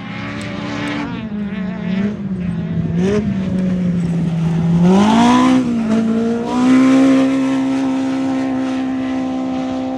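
Off-road race vehicle's engine running hard. Its pitch drops over the first few seconds, rises sharply about five seconds in, then holds steady at high revs while the sound slowly fades.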